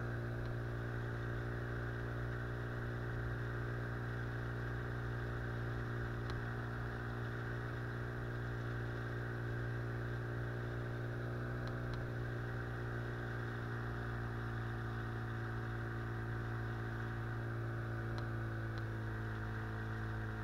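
Small boat's outboard motor running at a steady cruising speed, its hum holding one pitch, then settling slightly lower near the end.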